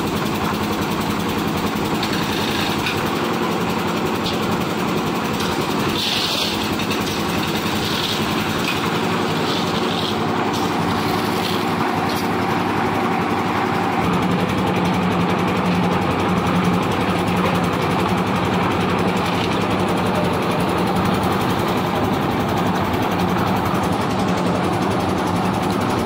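Concrete mixer machine with lift hoist, its engine running steadily under load, with a few short knocks in the first half. The engine gets a little louder about halfway through.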